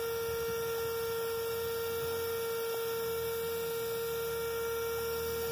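A steady electronic hum: one unchanging mid-pitched tone with faint higher overtones.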